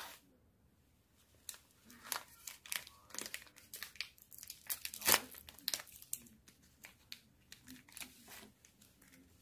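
Clear plastic wrapper of a packaged mochi being torn open and crinkled by hand: a quick run of sharp crinkles, the loudest tear about five seconds in, then quieter crinkling.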